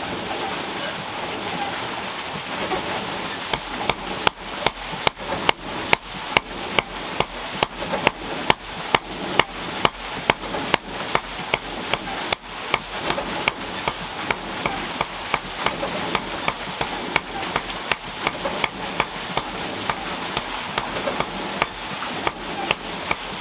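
A hand hammer striking a red-hot iron rod laid on a flat stone anvil, drawing it out into a nail. The blows are sharp and evenly paced, about two a second, and start a few seconds in.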